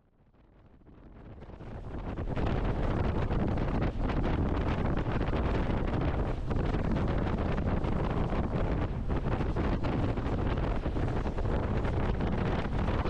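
Wind buffeting the microphone on a moving boat: a dense rushing noise, heaviest in the low end, that fades in over the first two seconds and then stays steady.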